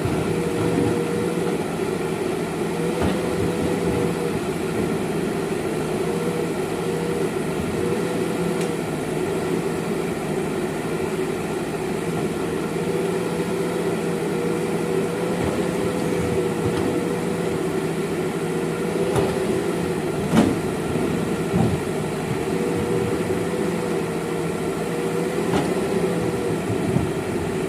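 JCB backhoe loader's engine running steadily under work, with a higher whine that wavers up and down. A couple of sharp knocks come about twenty seconds in.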